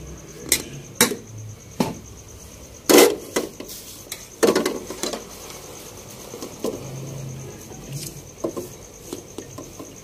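Aluminium cooking pots knocking and scraping as cooked rice is tipped from one pot into another and a spoon works into it: a string of irregular metal clatters, the loudest about three seconds in and again around four and a half seconds. A steady high cricket chirp runs underneath.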